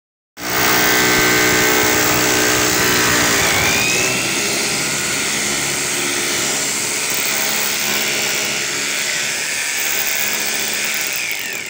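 Handheld electric drill running steadily as a twist bit bores into a wooden board. The drill starts just after the beginning, and its motor whine shifts in pitch about three and a half seconds in.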